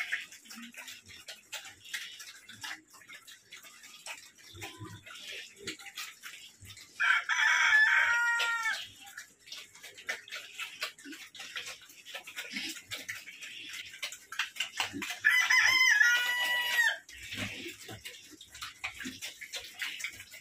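A rooster crowing twice, about seven seconds in and again about fifteen seconds in, each crow lasting close to two seconds. Underneath, a steady run of wet clicking from pigs eating at a trough.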